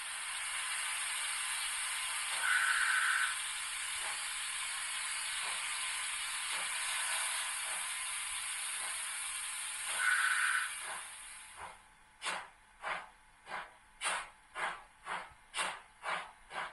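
Digital steam sound from the ESU LokSound 5 micro decoder in a Roco TT-scale BR 44 locomotive, played through its small speaker: a steady steam hiss with faint slow exhaust beats and two short high tones. About twelve seconds in the hiss stops and clear exhaust chuffs take over, quickening to about two a second as the locomotive pulls away.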